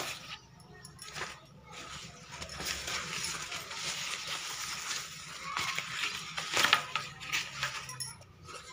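Handling noise as a bag is touched and moved about: irregular rustling and scraping with a few sharp clicks and taps, the loudest at the very start and two close together near the end.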